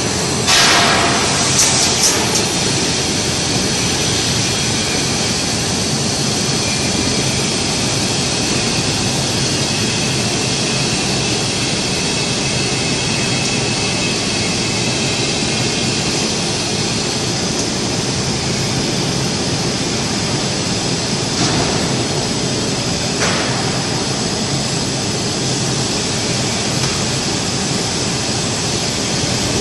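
TIG welding arc: a steady hiss with a faint low hum, with a few clicks in the first couple of seconds.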